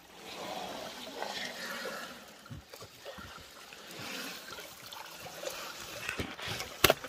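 Seawater sloshing and trickling around a large common skate as it is eased off wet rocks into the shallows, with a sharp knock near the end.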